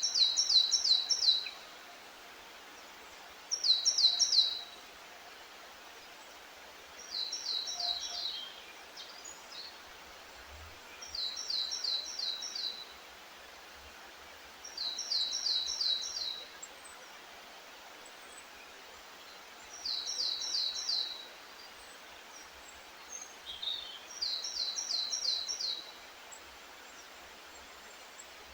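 A songbird singing the same short phrase over and over, each a quick run of about five repeated high notes lasting a second or so, seven times with pauses of a few seconds between, the first two loudest. A steady hiss runs underneath.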